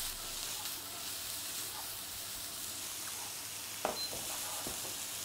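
Diced bacon and onions sizzling in fat in a frying pan as the pan is shaken, with sliced potatoes frying in oil in a second pan: a steady sizzle. A single knock near four seconds in as the pan is set back on the hob.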